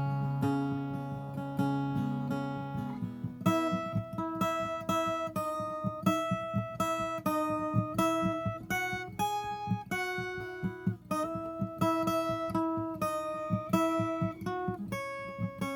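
Viola caipira played solo, a film theme melody: held, ringing notes for the first few seconds, then a picked melody line over quick repeated plucking on the lower strings.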